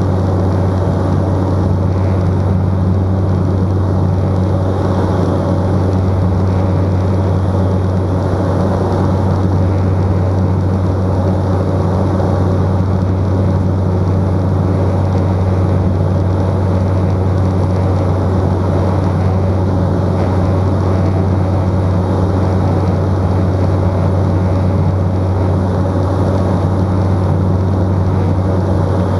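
Cessna 208 Caravan's turboprop engine and propeller running steadily in flight, heard inside the cockpit: an even, unchanging drone with a strong low propeller hum.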